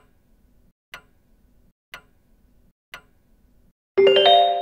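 Quiz countdown timer ticking like a clock, one tick a second, four times. Near the end a loud whoosh and a bright ringing chime of several held tones mark the end of the countdown and the reveal of the answer.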